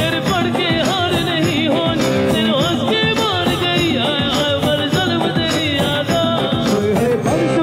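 Live band playing a song through PA speakers: drum kit keeping a steady beat under keyboard and a wavering melody line, with singing over it.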